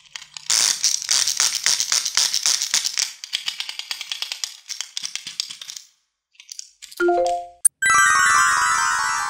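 Wind-up chattering-teeth toy running: a rapid clicking rattle of its clockwork and clacking teeth, thinning out and stopping about six seconds in. Then a short rising three-note chime, and a long cascade of bell-like notes stepping downward.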